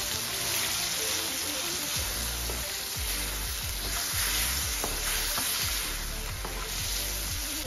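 Chicken liver and fenugreek curry sizzling in a steel kadhai while a wooden spatula stirs it, with light scrapes and knocks of the spatula against the pan.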